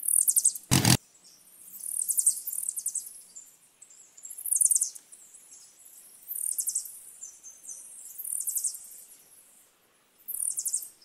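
Small birds chirping in short high trills, a bout every second or two. A brief loud burst of noise cuts in just under a second in.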